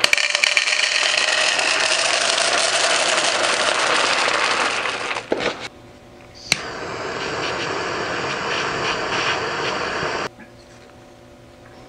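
A handheld butane torch heating a thin steel wire: it lights with a sharp click about six and a half seconds in, runs with a steady hiss for nearly four seconds, and cuts off suddenly. Before that comes a louder steady rushing hiss for about five seconds, ending in a couple of knocks.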